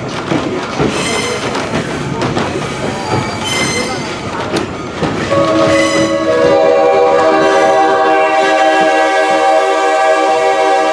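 Diesel locomotive air horn sounding a long chord of several notes from about five seconds in, held through to the end. Before it, the train rumbles along the rails.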